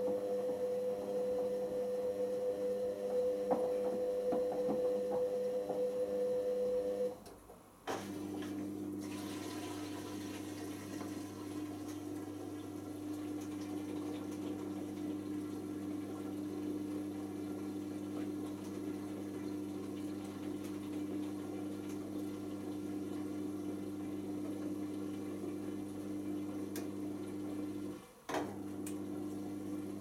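Hoover Optima OPH714D washing machine at the end of its wash: a steady motor whine over water in the drum, which stops about seven seconds in. The drain pump then starts with a steady hum as the wash water is pumped out, cutting out briefly near the end before carrying on.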